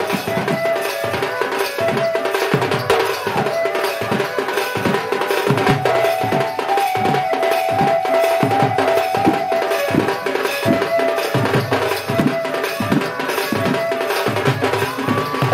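Dhol drum beaten with a stick in a continuous run of strokes, under a held, wavering melody line: Sambalpuri danda nacha dance music.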